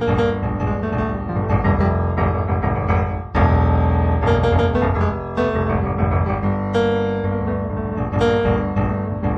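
Solo piano music, improvised, with notes and chords sounding one after another and a loud chord struck about three seconds in.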